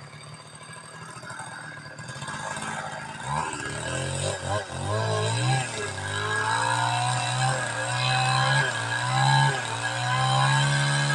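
Two-stroke chainsaw running at high revs, getting louder over the first few seconds. Its engine pitch then dips and recovers again and again as it bogs under load cutting into teak.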